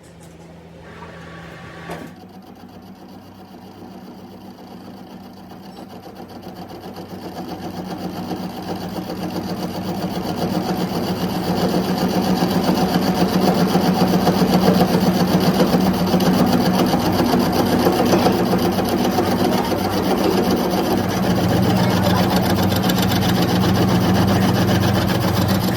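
A workshop machine running steadily with a low hum and a rough rasping noise, coming in about two seconds in and growing louder over the next ten seconds before holding steady.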